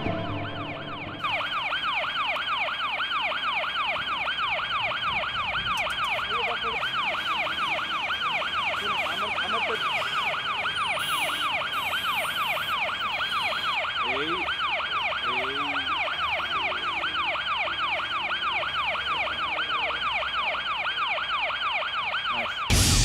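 Ambulance siren in a rapid yelp, sweeping up and down about three times a second; it starts about a second in and cuts off just before the end.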